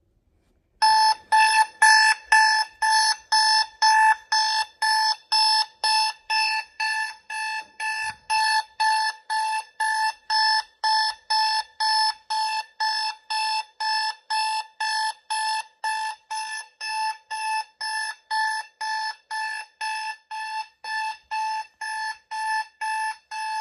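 Electronic alarm-clock beeping played loud through a portable Bluetooth speaker. It starts about a second in as a steady, rapid beep-beep of a little over two beeps a second, each beep the same single high tone.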